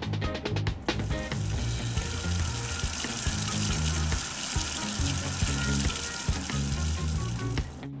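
Running tap water, a steady hiss that starts about a second in and cuts off suddenly near the end, over background music with a bouncing bass line.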